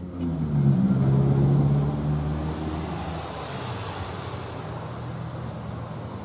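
A motor vehicle passing on the street, its engine note swelling about half a second in, loudest over the next second or two, then fading into steady traffic noise.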